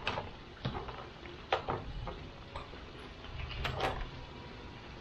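Scattered small plastic clicks and taps, about six, from handling Pop-It fidget spinners and their clear plastic snap cases.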